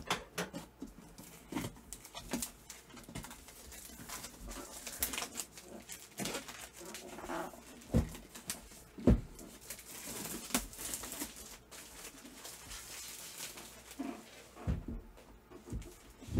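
Packaging rustling with scattered clicks and a few small knocks as a new Cricut Mug Press is unwrapped and handled.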